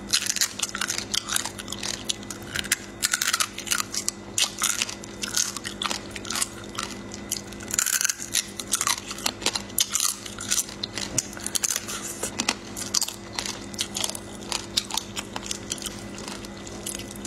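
Close-up biting and crunching of raw marinated flower crab claws, chewed shell and all: a dense run of sharp cracking and crackling bites and chews, with a faint steady hum underneath.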